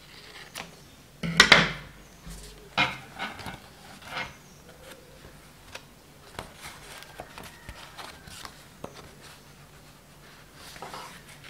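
Handling noises from a chart-paper rabbit mask: scissors trimming its string, the stiff card rustling, and light knocks on a wooden tabletop. The loudest is a short burst about a second and a half in, then a few smaller clicks and rustles.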